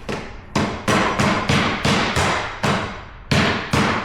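Mallet tapping a click-lock vinyl flooring plank into place: about nine sharp knocks, roughly three a second, with a short pause near the end.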